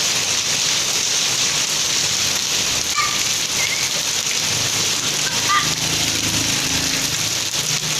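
Heavy rain falling steadily, a continuous even hiss of downpour on hard surfaces.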